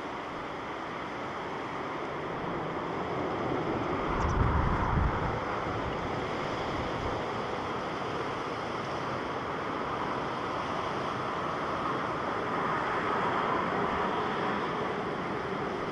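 Japan Airlines Boeing 737-800 jet on landing, a steady broad rush of engine noise that swells towards the end. Wind buffets the microphone about four seconds in.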